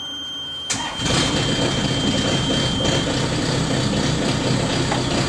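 Sherp ATV's diesel engine being started after the glow plugs were preheated. It cranks briefly and catches about a second in, then settles into a steady idle. A steady high tone heard before the start cuts off about three seconds in.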